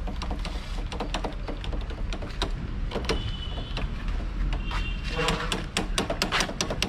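Irregular clicking and knocking of a motorcycle handlebar brake lever being pumped over and over to load hydraulic fluid into a stunt-bike handbrake, over a steady low hum.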